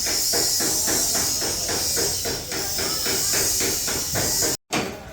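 Rapid, even hammering on sheet-metal bodywork, about four blows a second, over a steady hiss. It cuts off suddenly near the end and gives way to slower, separate blows.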